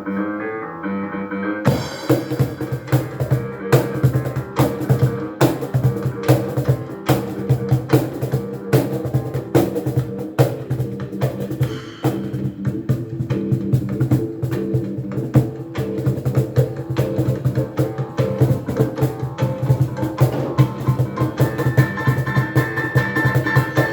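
Live music: a melody on a pitched instrument, joined about two seconds in by a steady beat of percussion hits that carries on under it. A sustained high note comes in near the end.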